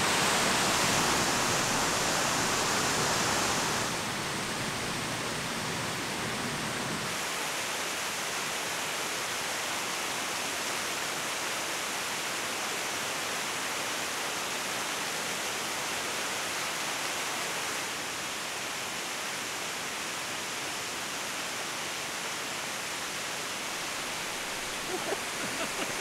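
Waterfall rushing steadily, a constant even roar of falling water that drops a little in level about four seconds in.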